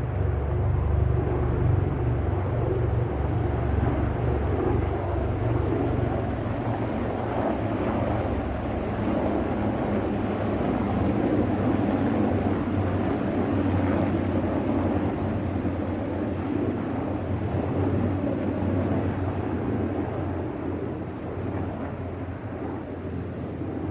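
Four military helicopters flying over: a steady, deep rotor-and-turbine drone that fades slowly over the last few seconds as they move away.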